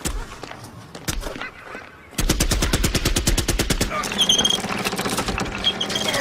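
Machine gun firing: a few single shots, then from about two seconds in a long rapid burst of evenly spaced rounds.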